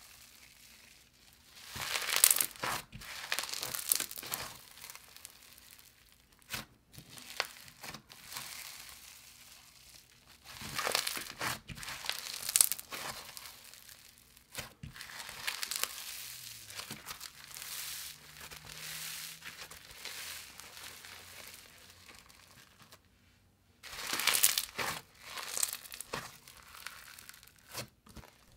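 Micro-bead floam, slime packed with tiny foam beads, being squished, stretched and pulled apart by hand. It crackles in irregular bursts with short pauses between.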